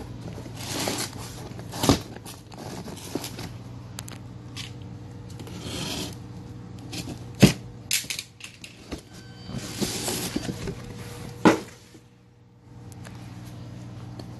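A large cardboard shipping box being pulled open by hand: cardboard flaps and tape scraping and rustling, with three sharp knocks spread through.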